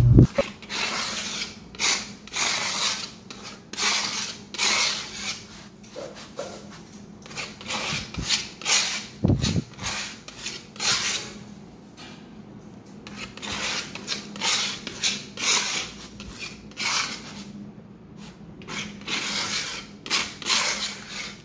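A spreader with a notched edge scraping acrylic flooring adhesive thinly across a concrete floor, in repeated short strokes about one or two a second with brief pauses between bouts.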